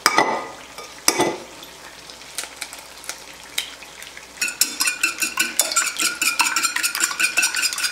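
Eggs knocked open on the rim of a china bowl, with two sharp cracks at the start and about a second in. Then, from about halfway, a fork beating the eggs rapidly against the bowl: a fast clinking that makes the china ring.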